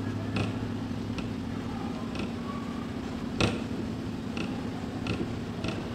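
Dry-erase marker writing on a whiteboard: a series of short scratches and taps as letters are written, the sharpest about three and a half seconds in, over a steady low hum.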